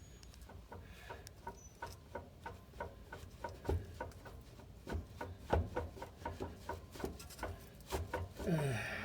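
Worn, very loose driveshaft universal joint clicking and knocking in irregular light strokes, about two or three a second, as the driveshaft is rocked by hand: the play in the U-joint behind the truck's rear clunk.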